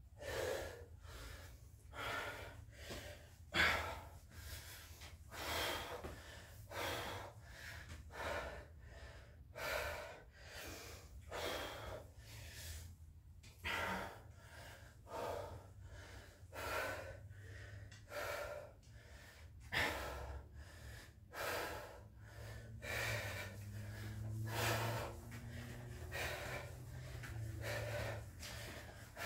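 A man breathing hard after exercise, heavy gasping breaths in and out about once a second.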